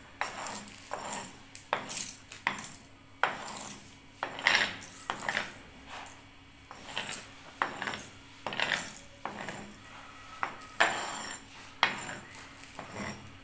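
A hammer crushing a plastic computer mouse: repeated sharp cracks and crunches of breaking plastic, about one blow a second, some blows with a longer crunch after them.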